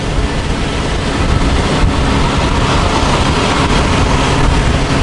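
Steady cabin noise of a turbocharged 1999 Acura Integra GSR cruising at highway speed: its built B18 engine running together with road and wind noise. The engine has one cylinder with low compression, which the owner says leaves it running on about three cylinders.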